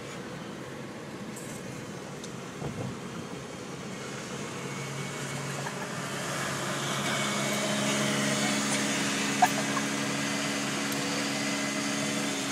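Engine hum and road noise inside a moving car's cabin, growing louder about halfway through as the hum shifts higher, with a single sharp click near the end.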